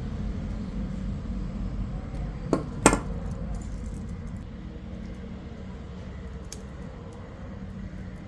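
Two sharp metallic clicks about half a second apart, a few seconds in, from a small hand tool working on a piece of imitation jewellery, with a few fainter ticks later over a steady low rumble.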